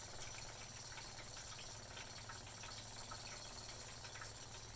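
Electric fuel pump from a 1978 MGB running and pumping liquid: a steady, fairly quiet hum with watery flow sounds. It is a sign that the pump, thought to be dead, still works.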